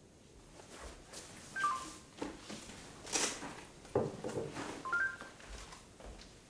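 Mobile phones giving short electronic three-note beeps, twice, amid rustling and a few knocks and shuffles as people handle them.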